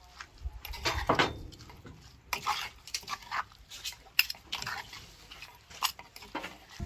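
Metal spoon scraping and clinking against the inside of a mortar as a moist paste of grilled prahok, shrimp and chopped herbs is stirred and scooped, in irregular short scrapes and knocks.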